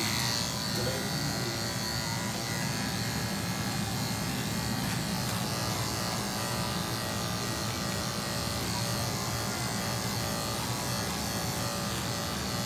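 Corded electric pet clippers running with a steady buzz as the blade shaves through a dog's thick, matted coat.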